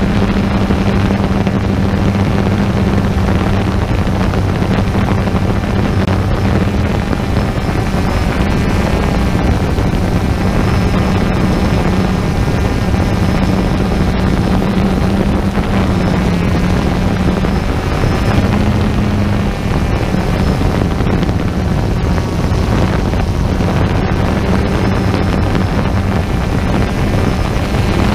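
Small multirotor drone's propellers buzzing steadily, a constant hum over rushing noise, its pitch shifting slightly about two-thirds of the way through.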